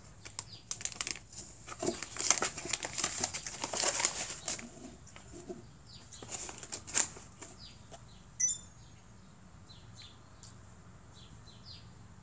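Tissue paper crinkling and a cardboard box rustling as a cat noses and pushes into it, in bursts over the first half. Then a sharp click about seven seconds in and a brief high chirp shortly after.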